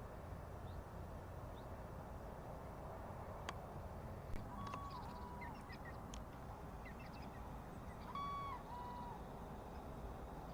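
A bird gives a two-note call twice, a held higher note followed by a slightly lower one, over faint chirps of small birds and a steady low background hum.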